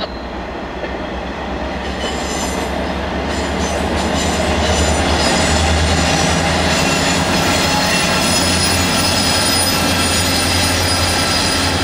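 MARC diesel-hauled commuter train rolling across a stone viaduct overhead, its wheels squealing with thin high tones over a steady rolling rumble. The low drone of the diesel locomotives, an EMD GP40 and an MP36 pushing at the rear, swells as they come by near the end.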